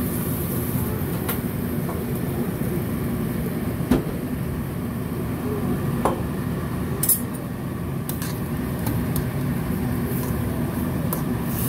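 A few sharp clinks of metal against a stainless steel cooking pot, then a metal spoon stirring ground meat and mushrooms in it, over a steady low rumble.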